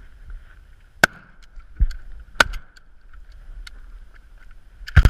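Shotgun shots from a boat: one about a second in, another at about two and a half seconds, and a quick pair near the end. Under them runs the faint steady hum of an idling tiller outboard motor.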